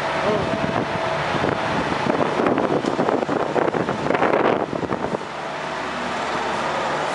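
Wind rumbling on the microphone in uneven gusts. It drops away about five seconds in, leaving a steadier low hum.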